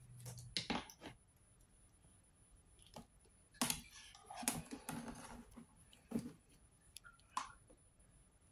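Scattered small clicks and light knocks of hands handling small electronic parts, wires and a power adaptor, with a brief rustle a little past the middle.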